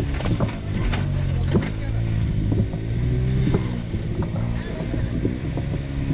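Side-by-side UTV engine running at low revs, rising and falling a little as it crawls over rock, with a few sharp knocks in the first couple of seconds.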